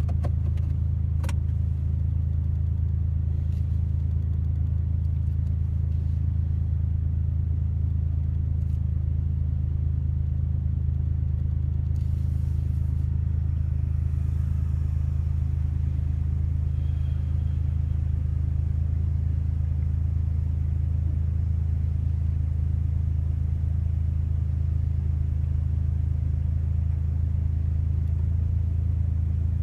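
Suzuki Jimny being driven: a steady low drone of engine and road noise that holds even throughout, with a few light clicks in the first second.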